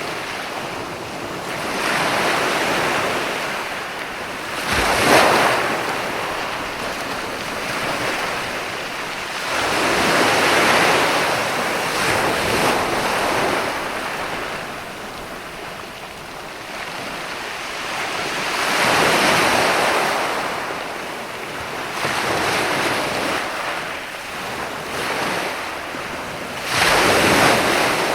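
Ocean waves breaking and washing in on the shore, rising and falling in repeated surges, with louder breakers about five seconds in and near the end.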